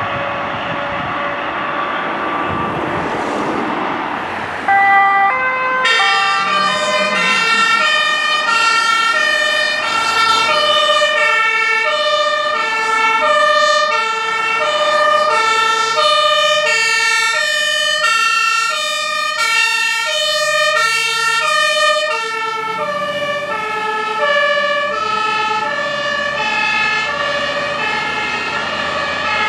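A German emergency vehicle's two-tone siren (Martinshorn) starts about five seconds in, after passing vehicle noise, and keeps alternating between a high and a low tone. It is loudest in the middle and a little softer near the end.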